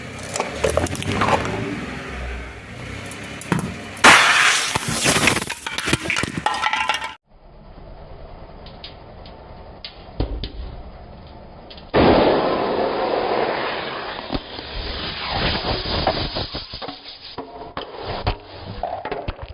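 Car tyre rolling over and crushing brittle objects: a run of crunching, cracking and breaking. It is loudest from about four seconds in, and again from about twelve seconds in.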